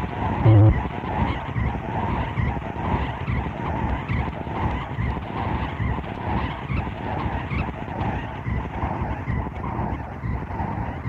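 Harsh noise music: a dense, churning wall of distorted electronic noise with a grinding, pulsing texture, and a short loud low drone just under a second in.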